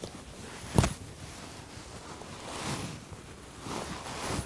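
Cushion brush drawn back through long hair a few times, soft rustling swishes, with a single thump about a second in.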